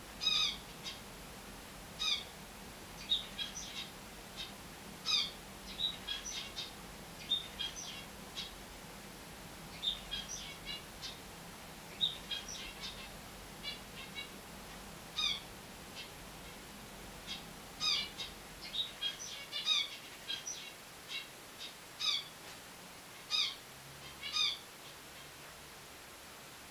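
Finches calling: short chirps, some single and some in quick runs of several, repeated every second or two.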